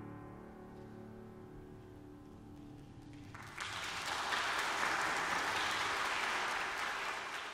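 Final piano chord ringing and slowly dying away, then about three and a half seconds in the congregation breaks into steady applause.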